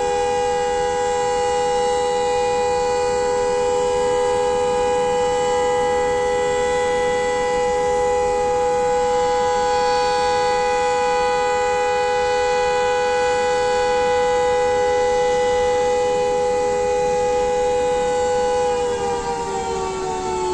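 Siren sounding one long steady note, its pitch sliding down near the end as it winds down.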